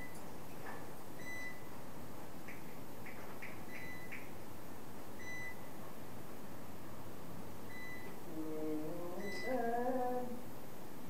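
Short, high electronic beeps sound several times at irregular intervals over a steady background hiss. A person's voice is briefly heard near the end.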